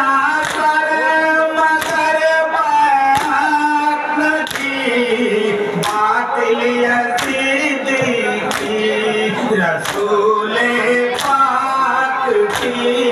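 Men singing a noha (Muharram lament) together, held lines rising and falling. Sharp chest-beating (matam) slaps land on the beat about every 1.3 seconds, ten in all.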